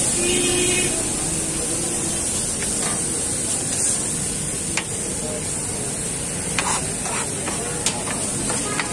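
Diced chicken sizzling and steaming on a stainless-steel flat-top griddle as metal scrapers chop and turn it, with a few sharp metal clicks of the blades against the plate in the second half.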